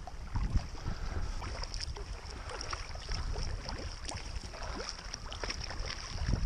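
Water splashing and lapping around a sea kayak as it is paddled, with irregular small splashes from the paddle blades. Wind rumbles on the microphone in gusts.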